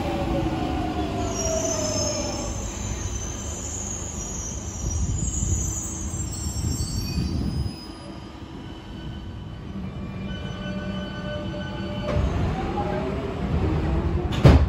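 London Underground tube train running along the platform: its traction motors whine and fall in pitch in the first few seconds, with a high wheel squeal on the rails for several seconds. In the second half a motor whine rises in pitch as a train accelerates, and there is one sharp bang near the end.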